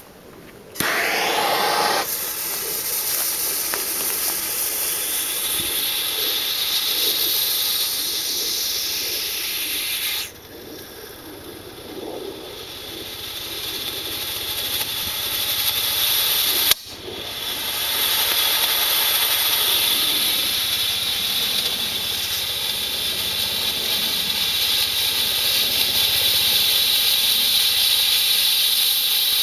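Homemade potassium chlorate and sugar smoke bomb burning with a strong, steady hiss as it pours out orange dye smoke. The hiss starts about a second in. It falls quieter around the middle, builds back up, and cuts out for an instant before running loud again.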